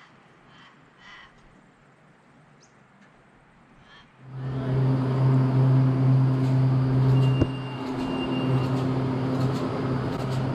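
A chairlift's drive machinery starts up suddenly about four seconds in and runs with a steady low hum. A faint high whine comes in briefly partway through.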